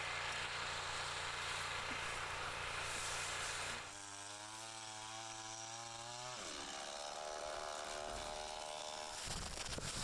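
A small engine running with a steady drone; its pitch shifts about four seconds in and again about six and a half seconds in.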